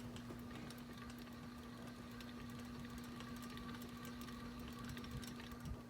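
Harbor Breeze Armitage ceiling fan giving off a faint, steady electrical hum: a constant low tone with a weaker higher whine above it.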